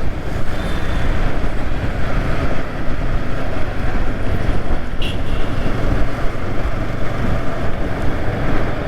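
Riding noise of a Yamaha R15 V3 motorcycle on the move: wind rushing over the helmet-mounted camera over the steady running of its 155 cc single-cylinder engine. A short click about five seconds in.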